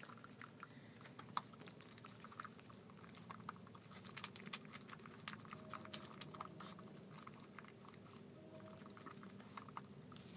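A baby raccoon chewing cat food out of a paper bowl: faint, irregular small clicks of chewing, busiest a little before the middle.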